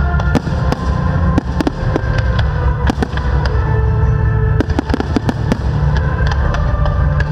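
Fireworks display: a rapid, irregular string of shell bursts and crackling reports over a continuous low rumble, with music playing underneath.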